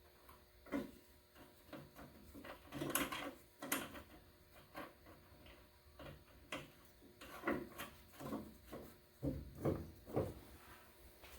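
Irregular metal clicks, knocks and scrapes as the steering center link is worked into place on the Fiat 124 Spider's steering linkage, about a dozen short handling sounds with the loudest a few seconds in.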